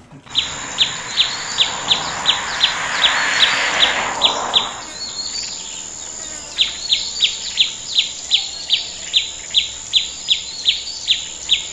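A bird calling a short, sharp downward chirp over and over, about three times a second, in two runs with a pause of about two seconds between them. Behind it is a steady high insect-like whine and a soft hiss.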